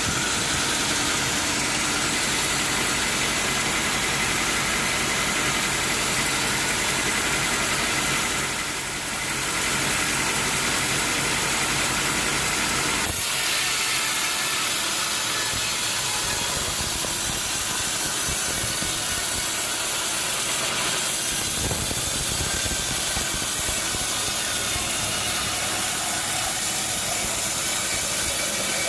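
Sawmill machinery running steadily: an engine note under a constant loud hiss. The low engine sound falls away about thirteen seconds in while the hiss continues.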